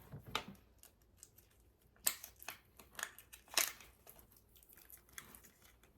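Scattered light clicks and crinkles of small plastic toy pieces and packaging being handled, the sharpest ones about two seconds in and a little past halfway.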